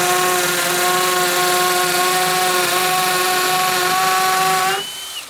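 Einhell TE-CD 18 Li-BL cordless brushless hammer drill in hammer mode, boring a 10 mm carbide-tipped masonry bit into a soft clay brick: a steady motor whine over the hammering noise. It drops off near the end and stops.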